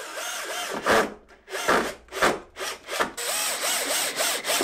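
Cordless Bosch drill-driver driving a screw into a wooden shelf, the trigger worked in short spurts so the motor's pitch rises and falls again and again, quickest near the end. A few sharp knocks of wood on wood in between.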